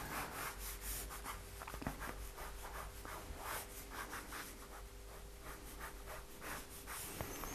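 Pen scratching across paper in quick, light sketching strokes, several a second, as lines are drawn over and over.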